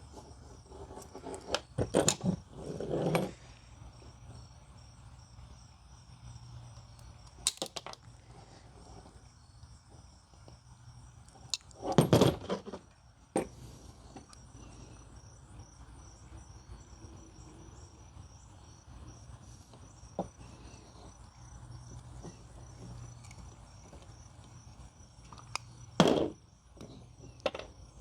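Small tools and connector parts handled on a workbench: scattered clicks and knocks with a few louder clatters, over a faint steady high-pitched whine.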